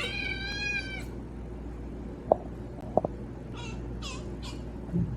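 Domestic cat meowing: one long meow at the start, then three short meows a little past halfway. Two sharp clicks come between the meows.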